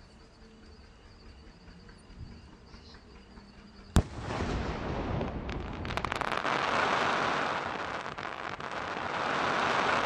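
A 3.5-inch aerial firework shell (Pandian Digital Star) bursts with one sharp bang about four seconds in. A dense crackling and hissing from its glittering stars follows, swelling and lasting several seconds.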